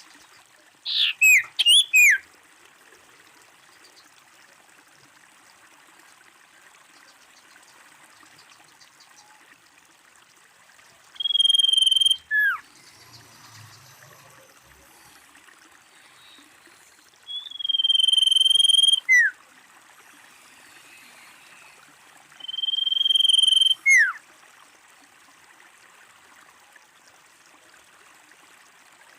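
Female common iora (sirtu) calling: a quick run of short falling whistled notes, then three long, steady, high whistles, each about a second long and ending in a sharp downward slur, repeated every six seconds or so.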